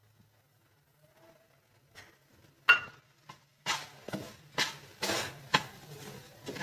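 Wooden spatula stirring sugar into grated potato and mawa frying in a nonstick kadhai, with a scraping stroke about every half second starting halfway through. Before that, a single sharp knock follows a near-silent start.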